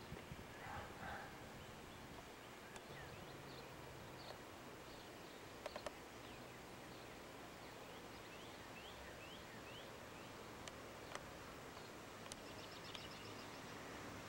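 Faint outdoor ambience with scattered bird chirps: a series of short falling chirps past the middle and a quick high trill near the end, with a couple of soft clicks about six seconds in.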